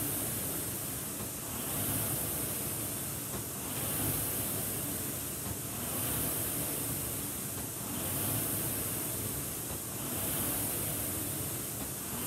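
Concept2 rowing machine's air-resistance flywheel whirring, swelling with each stroke about every two seconds.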